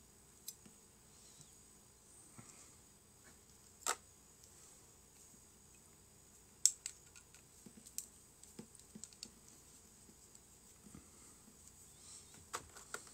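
Faint, scattered clicks and taps at irregular intervals over a steady high hiss, with two sharper clicks about four and seven seconds in and a small cluster near the end.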